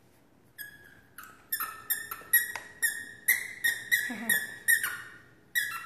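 A squeaky dog toy being chewed: short, sharp, high squeaks in quick succession, about two to three a second, starting about half a second in.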